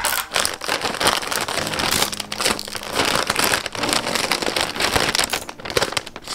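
Plastic courier mailer bag crinkling and rustling continuously as it is handled and pulled open by hand.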